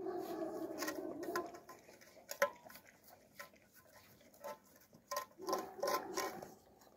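Alabai puppies eating and licking from metal bowls: the bowls clink, knock and scrape across the bare floor as a pup pushes one along with its muzzle, with a longer scraping stretch at the start and again about five seconds in.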